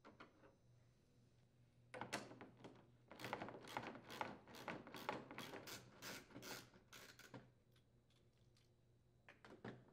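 Socket ratchet clicking quickly as it backs out the lower shroud's mounting screws, about four to five light clicks a second for several seconds, with a few fainter clicks near the end.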